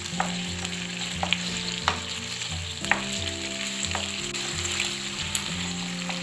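Diced vegetables in sweet and sour sauce sizzling in a nonstick frying pan over high heat while a wooden spatula stirs them, with scattered light knocks of the spatula against the pan.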